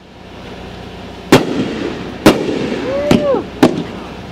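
Aerial fireworks shells going off: three sharp booms about a second apart, with a short whistle-like glide that rises and falls between the second and third.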